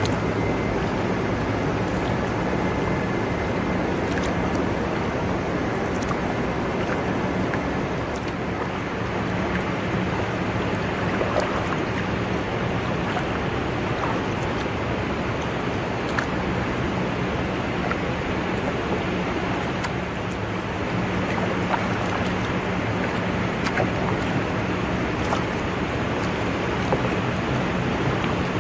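Steady rush of water from a large waterfall and the river around the kayak, with a low steady hum underneath and a few faint scattered ticks.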